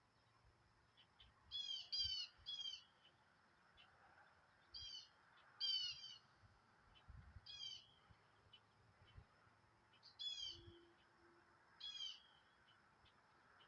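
A bird calling: short, high notes that curve downward, given in quick groups of two or three and repeated about every second or two, fairly faint.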